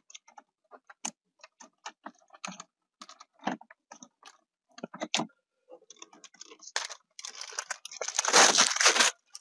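Plastic dashboard trim around a Hyundai Accent's factory stereo being pried with a plastic trim removal tool: a string of irregular sharp plastic clicks and creaks as the clips are worked. Near the end comes a louder rustling scrape lasting about a second.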